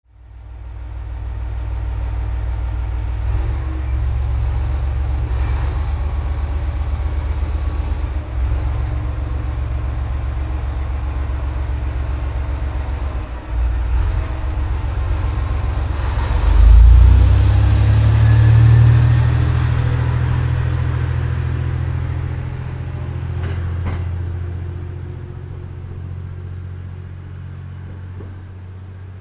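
Diesel railcar's engine working hard as it pulls away from the platform. It dips briefly about halfway through, surges loudest just after, then fades gradually as the railcar leaves.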